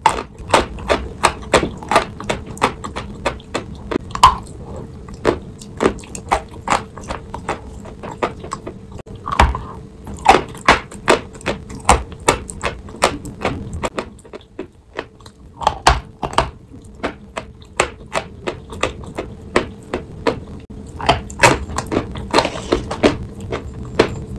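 Close-up crunching and chewing of a sawn block of white chalk coated in wet chalk paste: sharp, irregular crunches, two or three a second, with a quieter spell midway.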